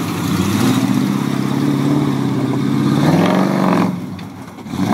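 Ford F-250's 302 (5.0) V8 through dual Cherry Bomb mufflers, revving hard under load as the truck climbs a steep dirt hill. The engine note rises and falls, then drops off about four seconds in as the truck reaches the top.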